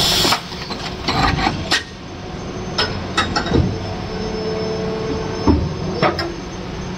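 Plastic injection moulding machine running, with a steady hum. A short hiss comes right at the start. Then a series of sharp clacks and knocks follows as the 16 bottle caps are ejected from the mould, with a brief steady whine in the middle.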